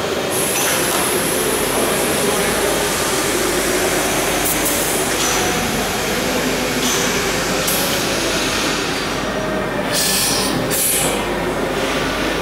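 Steady industrial machinery noise, with short bursts of air hiss as a pneumatic reel-handling manipulator is worked by its handles.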